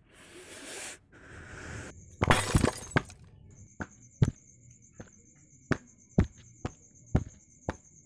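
Footsteps in sandals on a paved road, about two steps a second, over a high, steady, pulsing chirr of insects. About two seconds in there is a short, loud rustling crash.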